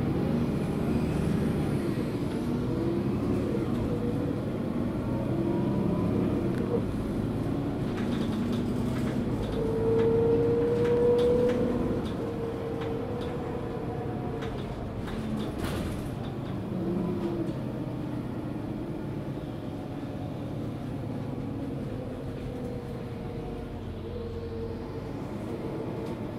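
Mercedes-Benz Citaro G articulated bus heard from on board: its OM457 six-cylinder diesel and ZF Ecomat 6HP automatic gearbox pulling away under load just after the 1-2 shift. A high gearbox whine rises briefly about ten seconds in, then the load eases and the engine settles lower.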